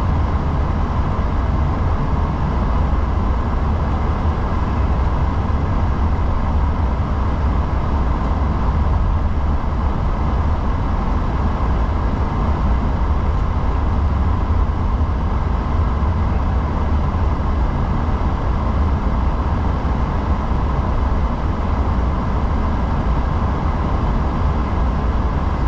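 Steady cockpit noise of an Airbus A340-600 taxiing: an even low rumble with a faint steady hum above it.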